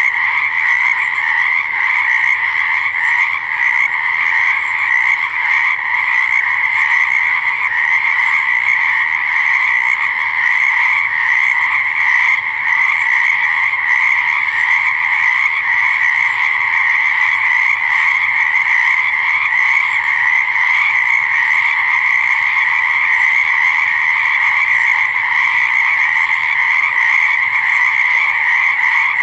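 Dense chorus of many frogs croaking at once, a steady unbroken wall of calls with no pauses.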